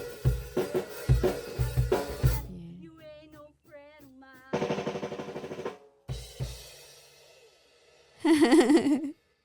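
Drum kit playing a quick fill of snare and bass drum hits, then a rapid roll about halfway through. A wavering voice is heard briefly near the end.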